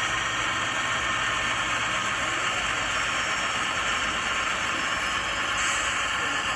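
Model locomotive sound decoder playing a recorded GE 7FDL16 diesel prime mover running steadily: a hissy engine and turbo sound over a low hum, heard through the model's small speaker.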